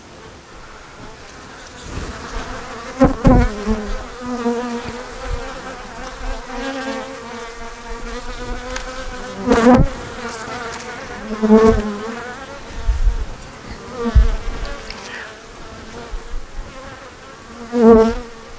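Honeybees buzzing over an open hive, with single bees flying close past the microphone in a loud, pitched buzz about five times. A few short knocks as frames are worked with a hive tool.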